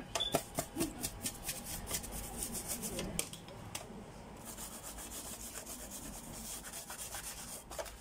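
Toothbrush scrubbing dust off the plastic top cover of a PS4 Slim: a quick run of scratchy strokes and clicks, turning into steadier brushing from about halfway on.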